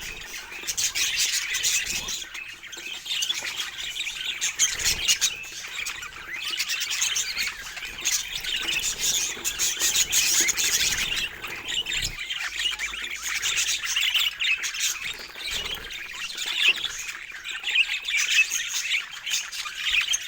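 Budgerigars chattering and squawking without pause, a dense stream of quick high chirps and harsh calls.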